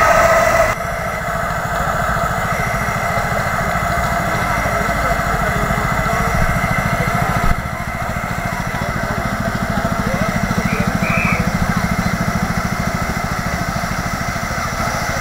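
Miniature steam locomotive standing with steam up: a steady running noise with a fast, even low flutter. The sound changes abruptly about a second in and again about halfway through.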